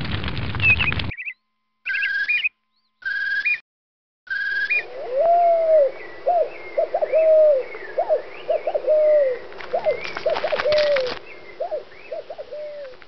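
Bird sound effects: doves cooing in repeated arched calls, with higher chirps of smaller birds over them. The first few seconds hold three short, cut-off snippets of chirping.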